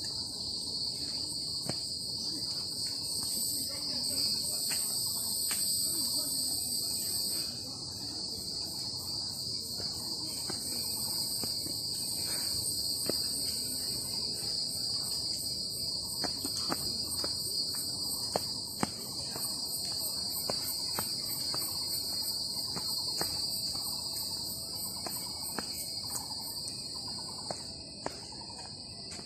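Steady high-pitched buzzing of an insect chorus in the trees, with a faster pulsing trill above it. Faint scattered taps sound beneath.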